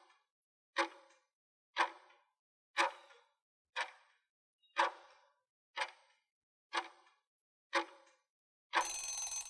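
Clock-tick sound effect for a countdown timer, one tick each second. About nine seconds in, a short ringing sound effect marks the end of the countdown: time's up.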